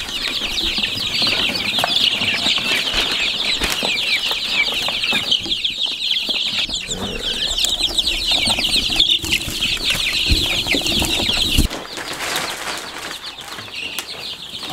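A brooder of young chicks peeping nonstop, many high cheeps overlapping, with the rustle of a feed bag being handled. The peeping cuts off suddenly about twelve seconds in.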